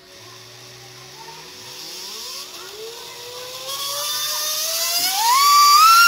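Sensored brushless RC car motor, driven by a 120A ESC and run free on the bench, spinning up under throttle. Its whine climbs steadily in pitch from about two and a half seconds in, rises sharply near the end, then holds as a loud high-pitched whine.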